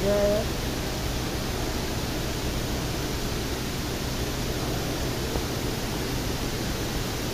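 Steady rush of the Dubai Mall Waterfall, an indoor cascade sheeting down a multi-storey wall into a pool.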